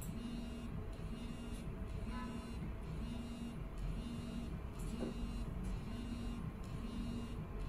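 CNC machining center running, heard from the machining footage being played: a steady machine hum with a low tone that pulses about once a second and a thin high whine above it.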